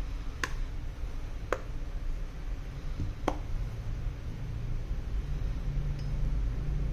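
Three sharp clicks in the first three and a half seconds as an iPhone is handled, over a steady low hum.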